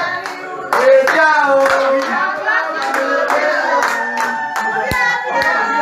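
A group of people clapping their hands in a steady rhythm while voices sing along together.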